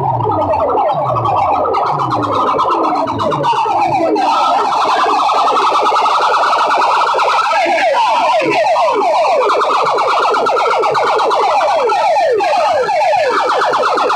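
Electronic siren-style sound effect played loud through a bank of horn loudspeakers on a DJ sound system: rapid, repeating falling sweeps. A pulsing bass beneath it stops about four seconds in.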